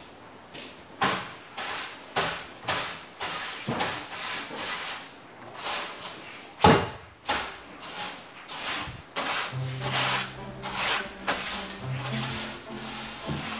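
Broom of long, light-coloured fibres swept in quick strokes across a wooden tabletop, about two swishes a second, one stroke near the middle louder than the rest. Background music comes in about two-thirds through.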